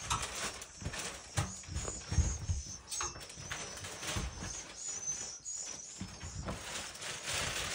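Irregular knocks, thuds and footsteps as someone moves about inside a swiftlet house, over a steady run of high, wavering bird chirps.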